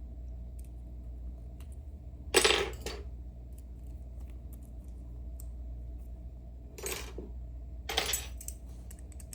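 A metal lock being handled and turned over, clinking and rattling in three short bursts, the loudest about two and a half seconds in, over a steady low hum.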